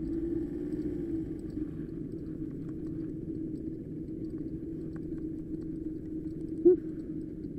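Street go-kart's small engine running with a steady drone and low rumble. A brief, loud pitched blip cuts in near the end.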